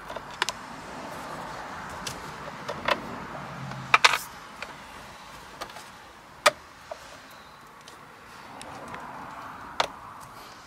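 Screwdriver clicking and tapping against the screws and housing at the back of a car steering wheel: a handful of sharp clicks spread out, the loudest a quick double click about four seconds in, over a steady faint hiss.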